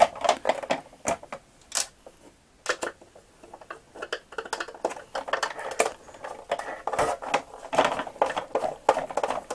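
Hand screwdriver turning small screws into the plastic underside of a toy armoured vehicle: rapid scratchy clicking and creaking of screw against plastic, dense from about four seconds in. Before that, scattered knocks and clatter as the plastic toy is handled and turned over.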